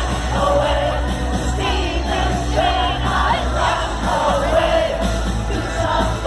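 Live indie rock band playing, with sung vocals over a heavy bass line and many crowd voices singing along, heard from among the festival audience.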